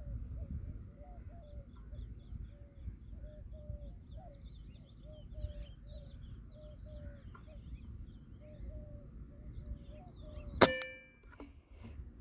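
Short chirping bird calls repeat two or three times a second over a low background rumble. About ten and a half seconds in, a Kral Puncher Breaker .22 PCP air rifle fires once with a sharp crack and a brief metallic ring, followed by a couple of fainter clicks.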